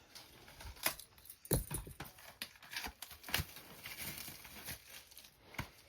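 Plastic packaging of desktop RAM sticks being handled and opened: irregular crinkling with scattered clicks and taps.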